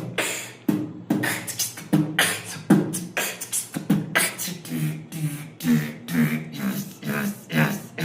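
A person beatboxing: a quick, steady rhythm of sharp mouth-made percussion hits mixed with short hummed bass notes.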